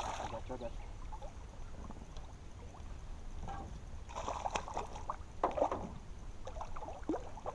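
A hooked bass splashing and thrashing at the water's surface beside a small boat while it is played to the net, in several brief splashes over a low steady rumble.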